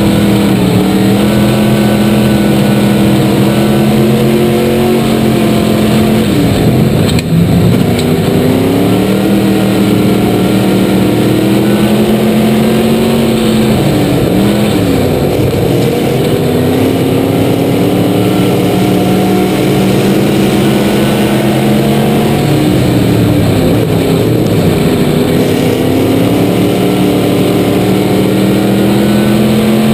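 Dirt-track race car engine heard from inside the cockpit, running hard under load. Its pitch drops and climbs back three times, about every eight seconds, as the throttle is lifted for the turns and reapplied down the straights.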